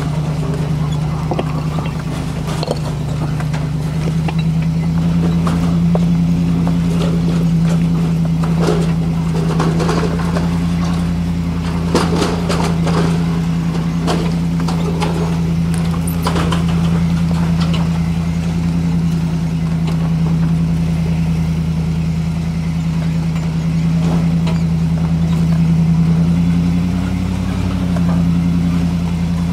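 Land Rover 4x4's engine running steadily at low revs under load as it crawls up a rocky trail, with a slight change in pitch near the end. Scattered knocks and clicks of rocks and gravel under the tyres come through around the middle.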